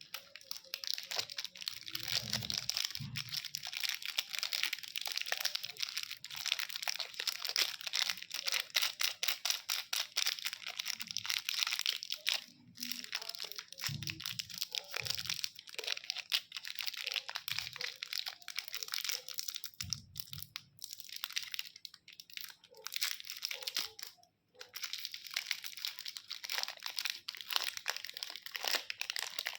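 Candy wrappers being crinkled and crackled in the hands: a dense, continuous run of small crackles, broken by two brief pauses, with a few soft low thumps from handling.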